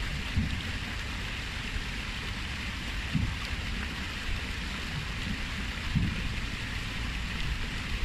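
Water cascading down the stone steps of a stepped fountain into a pool: a steady splashing hiss, with a few short low rumbles of wind on the microphone.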